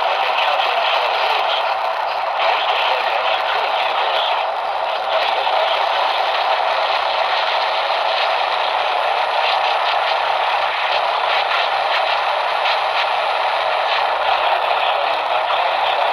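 Steady radio static, a hiss with crackle from a receiver on a weak, poorly received signal.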